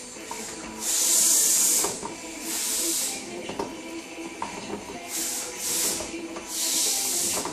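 Gas torch flame hissing in about five separate bursts, each roughly half a second to a second long, the loudest about a second in. The torch is used for lead-burning the plate lugs of a hand-built battery.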